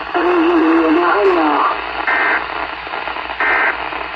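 Radio receiver hissing with heavy static, a faint voice coming through it at first, then two short electronic beeps about a second apart.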